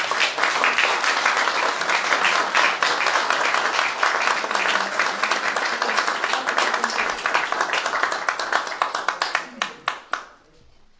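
Audience applauding: many hands clapping in a dense, steady patter that thins to a few scattered claps and stops near the end.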